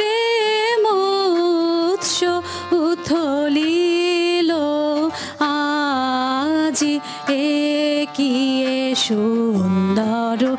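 A woman singing a Bengali song, holding long notes that glide and waver, accompanied by harmonium and tabla.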